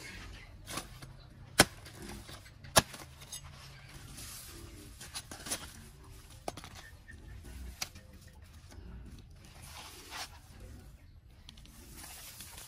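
Hands and a knife working at a cut banana plant: leaves and stems rustling, with two sharp clicks about one and a half and three seconds in and a few lighter ticks after.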